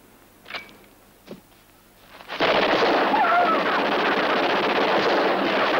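Movie shootout sound: after a couple of faint clicks, a dense, continuous burst of rapid gunfire, submachine-gun fire among it, starts suddenly about two and a half seconds in and keeps going.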